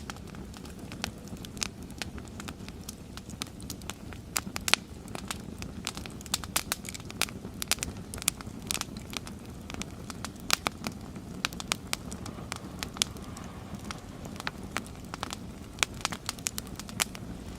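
Wood fire crackling, with frequent sharp, irregular pops over a steady low rush.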